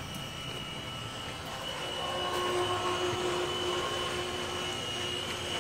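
Steady hum of running machinery with a thin high whine, a lower hum joining in about two seconds in.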